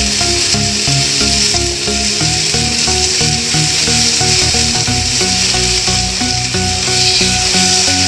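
Background instrumental music over chicken pieces sizzling in an oiled grill pan, with a wooden spatula rubbing and scraping against the pan as the pieces are turned.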